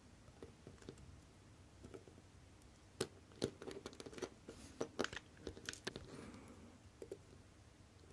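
Watchmaker's tweezers clicking and tapping on a Citizen 8100A chronograph movement and its holder while small parts are lifted off, with light handling rustle. The clicks cluster together from about three to six seconds in.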